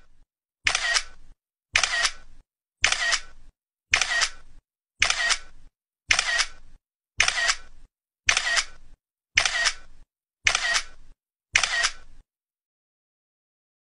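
A sharp click sound effect with a short ringing tail, repeated eleven times at an even pace of about one a second.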